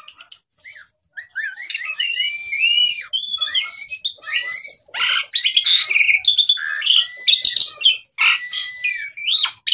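Jalak suren (pied starling) singing a long, varied song of whistled glides mixed with harsh, squawky notes, after a few short calls at the start. It is shown as a bird whose arousal and temper are in balance.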